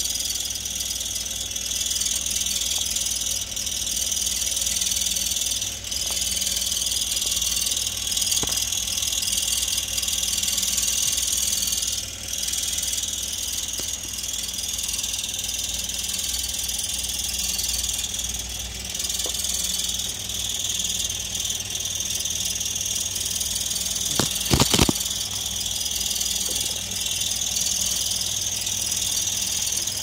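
2003 Toyota Yaris idling, heard from underneath the car, with a continuous high-pitched chirping over the low engine rumble; the cause of the chirp is unknown. A couple of sharp knocks come about three-quarters of the way through.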